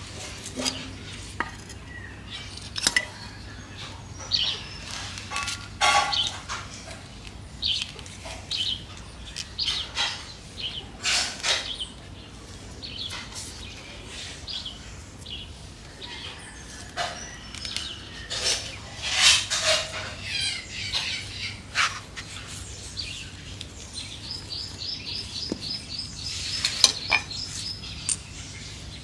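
A metal garden trowel and pruning shears clink and scrape against a tiled floor and a ceramic pot, with irregular knocks and soil crumbling, while a chili plant's root ball is worked out of its pot. Birds chirp in the background, with a fast, high trill near the end.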